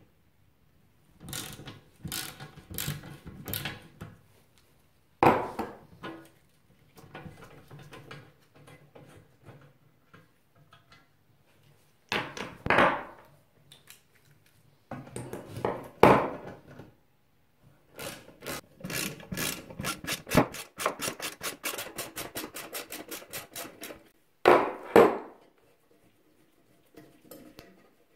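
Hand work on a workbench: a socket ratchet clicks in a fast, even run for several seconds as bolts come off the exhaust expansion chamber's steel brackets. Around it are rubbing and clattering of metal parts and tools, with several heavier knocks on the wooden bench top.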